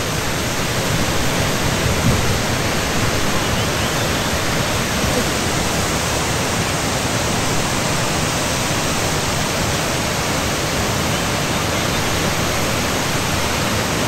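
Waterfall rushing: a loud, steady, unbroken noise of falling water.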